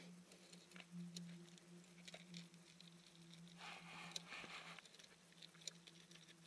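Faint scattered clicks and a brief rustle about four seconds in, from hands working a bicycle chain, over a steady low hum.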